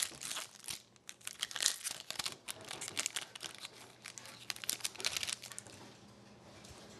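Plastic or foil hockey card pack wrapper crinkling and tearing as a pack is opened and cards are handled: a run of irregular crackles that thins out near the end.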